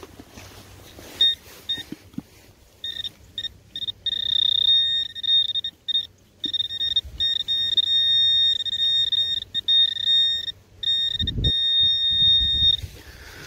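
Metal detector sounding a steady high-pitched signal tone over a buried target, cutting in and out repeatedly as it is swept over the hole. The target is a deep coin. A low thump comes near the end.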